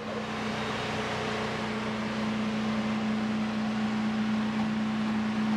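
A steady mechanical hum at one low pitch over an even rushing hiss, holding level throughout.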